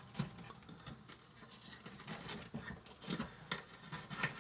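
Small knife cutting red onion on a miniature wooden cutting board: irregular light taps and clicks as pieces are cut and gathered.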